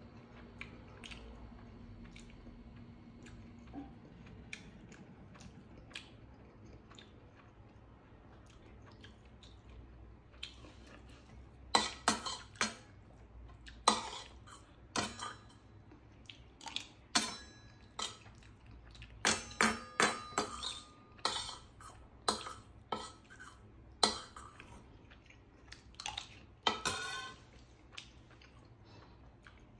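A metal spoon scraping and clinking against a stainless steel bowl, in a string of sharp, loud strokes from about twelve seconds in until near the end; before that only a few faint clicks.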